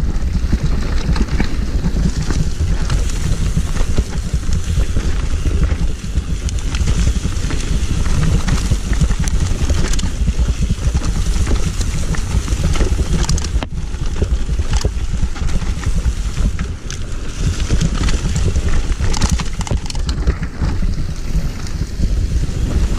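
Full-suspension mountain bike (Trek Remedy) descending a dirt forest trail at speed: a steady rush of wind on the microphone over tyres rolling on dirt, with constant small rattles and knocks from the bike over the bumps.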